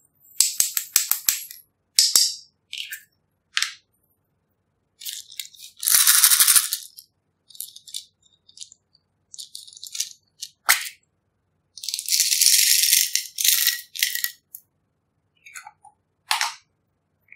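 Small plastic pots being tipped and shaken, sending tiny beads, rhinestones and glitter rattling and skittering into a glass dish. The sound comes in a string of short bursts with silent gaps and some sharp clicks; the longest bursts are about six and twelve seconds in.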